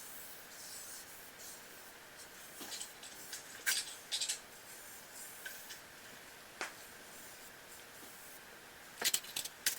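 A stick of pastel chalk scratching and rubbing across thin paper in short strokes, darkening drawn lines, with a few sharper ticks near the end.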